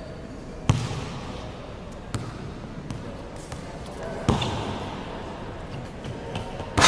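Basketball bouncing and banging on a hardwood gym court: four sharp bangs a second or two apart, the last one the loudest.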